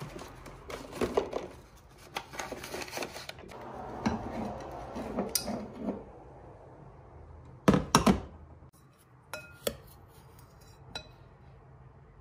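Kitchen handling noises: a glass coffee jar and a metal scoop knocking and clinking. There is a pair of louder knocks about eight seconds in, and a few light, briefly ringing clinks after it.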